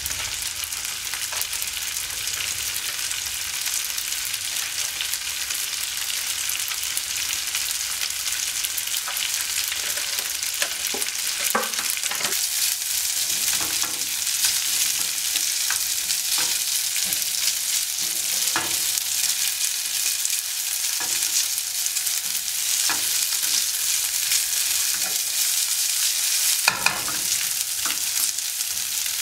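Diced food sizzling steadily in a frying pan. From about ten seconds in, a spatula stirs it, scraping and clicking against the pan, with a louder scrape near the end.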